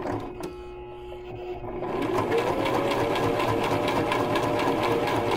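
Electric sewing machine top stitching fabric. It runs slowly at first, with a couple of clicks, then about two seconds in its motor whine rises as it speeds up and stitches steadily with a fast, even needle beat.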